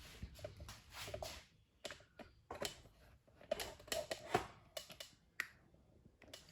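Faint, scattered clicks and light taps of small objects being handled and set down.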